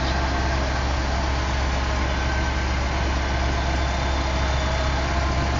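Heavy engine running steadily at idle: a constant low drone.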